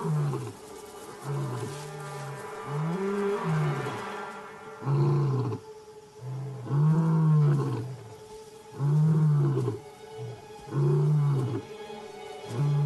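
Adult male lion roaring a territorial bout: a series of about eight deep roars, each about a second long and rising then falling in pitch, one every one to two seconds.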